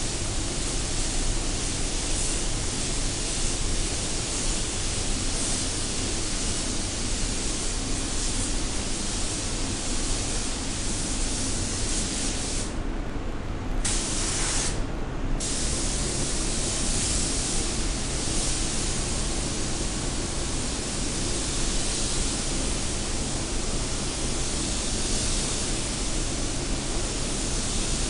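Gravity-feed spray gun hissing steadily with compressed air as it lays a lighter second coat of silver basecoat, over a steady low hum. The hiss cuts off twice, briefly, about halfway through as the trigger is let go.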